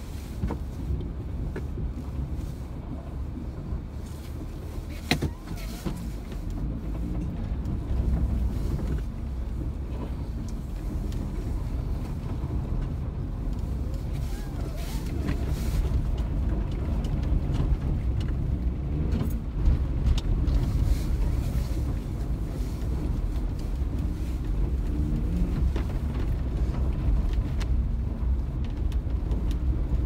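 Car driving slowly on icy, snow-covered pavement, heard from inside the cabin: a steady low rumble of engine and tyres, with scattered brief knocks and clunks. The rumble grows louder about halfway through as the car picks up speed.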